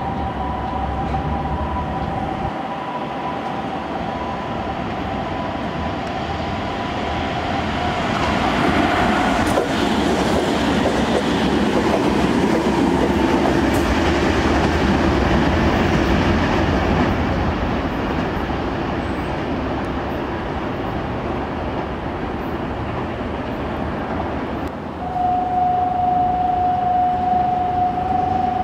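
Nankai electric train passing through a station at speed. The wheel-and-rail running noise grows to its loudest about eight seconds in, holds for several seconds and eases off. Steady tones sound over it at the start, and another steady tone comes in near the end.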